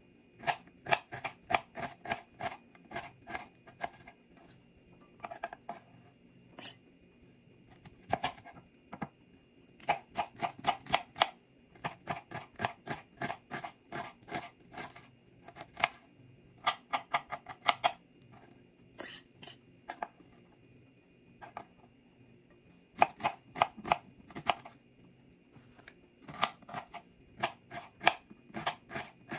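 Kitchen knife chopping an onion on a wooden cutting board: runs of quick knocks of the blade on the board, several a second, with short pauses between runs.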